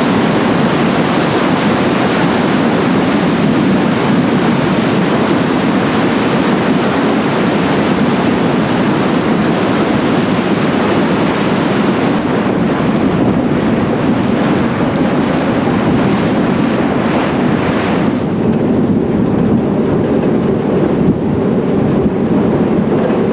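Sea water churning and rushing loudly past the paddle box of the paddle steamer Waverley as its paddle wheel stirs up white wash, with wind on the microphone. About 18 seconds in the high hiss of the wash drops away, leaving a lower rumble of wind and water.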